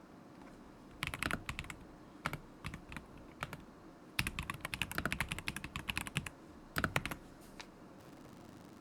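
Typing on a stock KZZI K75 Pro mechanical keyboard with Moment linear switches: uneven bursts of rapid keystrokes with short pauses between, the longest run about halfway through.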